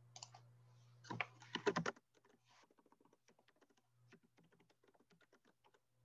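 Typing on a computer keyboard: a few louder key clicks in the first two seconds, then a quick, uneven run of faint keystrokes. A low hum underneath cuts out about two seconds in.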